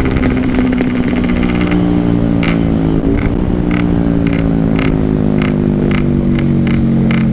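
Yamaha RX-King 135 cc two-stroke single-cylinder engine running hard under a rider, its pitch easing slowly down, with a faint regular ticking about every half second over it.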